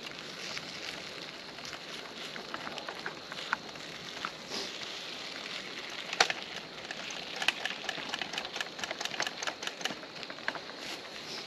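Scrambled eggs sizzling in a skillet over a campfire, with the fire crackling: a steady hiss broken by many small sharp pops, thickest in the second half, and one louder snap about six seconds in.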